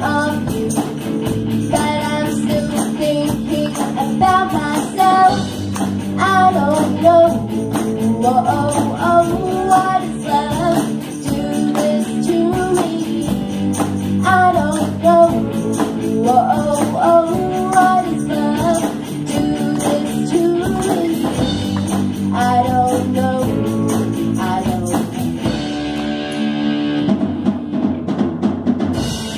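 Live rock band playing, with a group of young girls singing the melody together over guitars, keyboard and drum kit. The singing stops about four seconds before the end while the band plays on.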